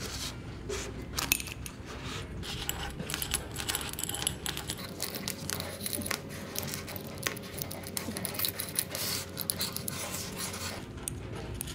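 Steel roller chain clinking and rattling in the hands, with light metal taps and scrapes as the chain end is worked into a steel pipe and moved on a steel bench.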